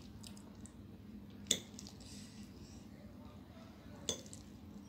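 A metal fork clinks sharply against a plate twice, about a second and a half in and again near the end, while cutting into a fried egg on a plate of noodles.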